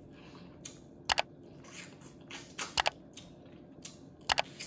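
Eating snow crab legs close to the microphone: three sharp crackles, each a quick double click, with softer wet mouth and chewing sounds between.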